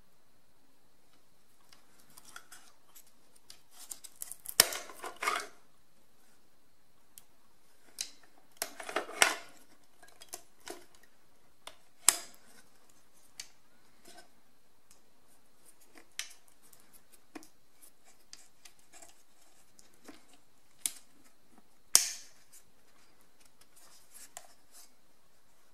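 Hard plastic clicks and snaps with short bouts of scraping and rubbing, as a trail camera's housing and hinged door are handled and pressed. There are two denser scraping stretches in the first half and single sharp clicks later on.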